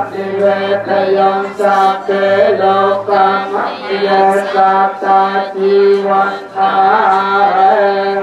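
Buddhist chanting: voices reciting together on a near-steady pitch, in phrases that pause briefly about once a second.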